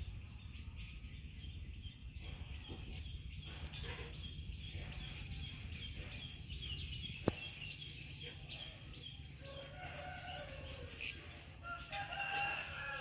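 A rooster crowing, a drawn-out pitched call that is loudest near the end, over a steady low hum. Earlier there is a quick run of short, high chirps.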